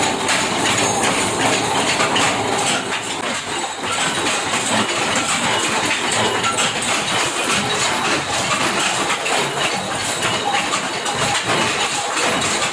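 Steady din of factory machinery with dense, rapid clattering and knocking.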